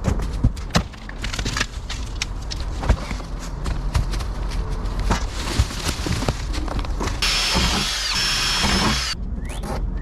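Repeated knocks, clicks and scraping of hand work on a small boat's hull, then about two seconds of a power tool running with a steady high whine, cutting off abruptly.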